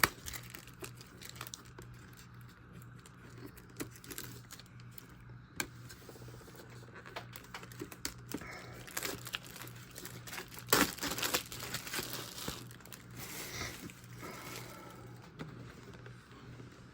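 Plastic shrink-wrap being picked at, torn and peeled off a VHS clamshell case: scattered crinkling and crackling, busiest about eleven to fourteen seconds in.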